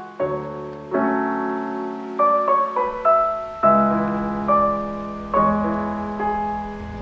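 Slow piano music: single notes and chords struck one after another, each left to ring and fade.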